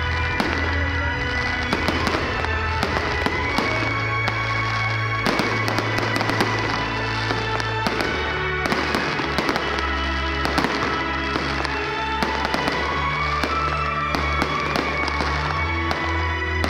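Fireworks display: a dense run of bangs, pops and crackles from rising comets and bursting shells, several a second. Loud music with a sustained bass line plays underneath.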